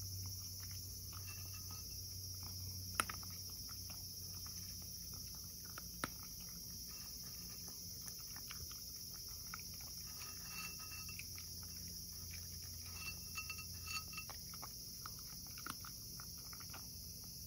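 Cat chewing dry kibble from a ceramic bowl: a steady run of small crisp crunches and clicks, with a few sharper clicks about three and six seconds in and a quick cluster near the end. A faint steady high hiss sits underneath.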